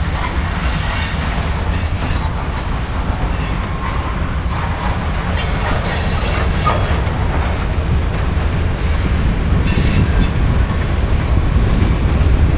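Freight train of boxcars and covered hoppers rolling past: a steady rumble of wheels on rail, with short high-pitched wheel squeals now and then.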